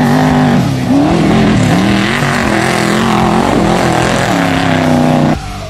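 Off-road race truck's engine running hard, its pitch rising and falling again and again as the driver works the throttle. The sound cuts off abruptly near the end.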